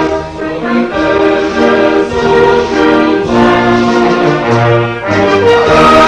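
Orchestral music led by brass, playing loud sustained notes that change about once a second.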